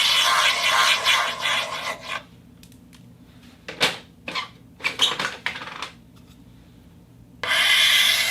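Record turntable sounds: a dense scratching, rubbing noise, then a quiet stretch broken by several sharp clicks and scrapes in the middle. The rubbing noise comes back near the end.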